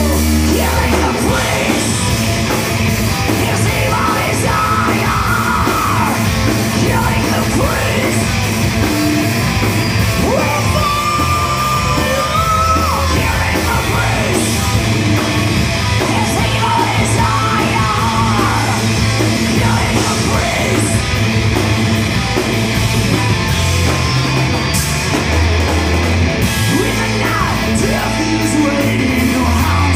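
A live heavy rock band playing loudly: a singer's vocals over electric guitar, electric bass and drums.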